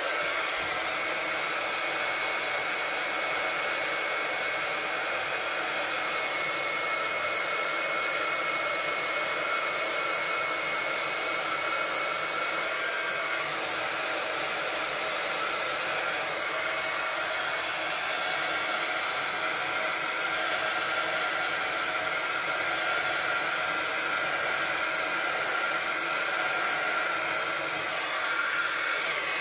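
Handheld craft heat gun running steadily, a rush of blown air with a faint motor whine, drying glue; it is switched off at the very end.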